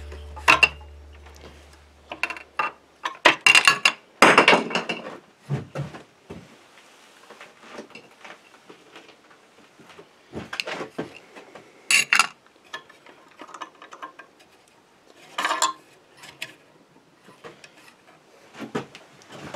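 Irregular clicks, knocks and clatters of a small hand tool and screws against the plastic wheel guard and housing of a bench chainsaw-chain grinder as the guard is taken off.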